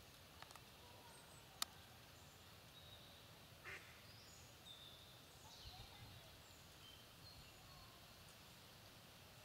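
Faint outdoor ambience with scattered short, high bird chirps, a single sharp click about one and a half seconds in, and one short duck quack near the middle.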